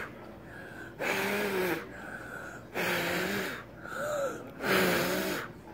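A child blowing hard into a sheet of glitter slime held against her mouth to inflate a bubble: four breathy puffs of air, each under a second, each carrying a low pitched tone.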